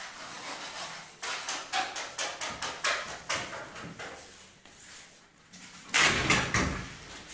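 A series of sharp knocks and clicks from household things being handled and moved, with a louder, longer clatter about six seconds in.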